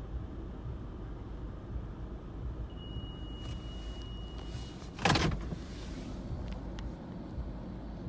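Inside a car stopped in a LaserWash M5 touchless car wash bay: a low, steady rumble, a thin steady beep lasting about two seconds near the middle, then one loud, brief burst of noise about five seconds in that dies away quickly.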